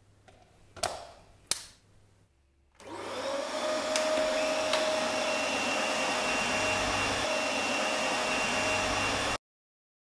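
Two sharp clicks at the wall socket as the mains plug goes in, then the Dyson DC24 upright vacuum cleaner's motor starts about three seconds in and spins up to steady running with a steady whine, its reset brush bar being tested. The sound cuts off suddenly near the end.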